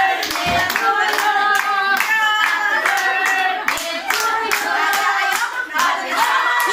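A group of people clapping in steady time, about two claps a second, while women sing together.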